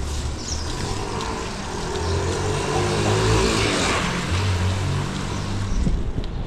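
A motor vehicle passing close by. Its engine and tyre noise swell to a peak a little past the middle, then fade.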